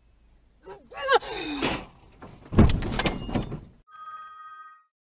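Car tyres squealing and skidding under hard braking, then a car crash about two and a half seconds in: a loud impact with a crunching, rattling tail. Near the end a steady tone sounds for about a second.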